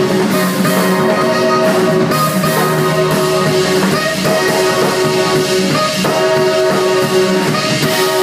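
Live jazz-rock band playing, with saxophone held notes over electric guitar, organ, electric bass and drums. Just before the end the bass and drums stop, leaving held notes.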